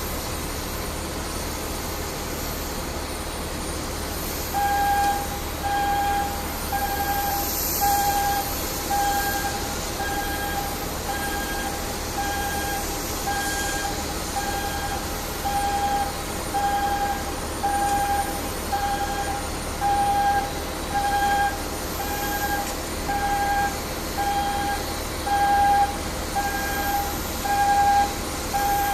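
Airport passenger boarding bridge retracting from the aircraft door, its movement warning beeper sounding about once a second from a few seconds in, over a steady mechanical hum.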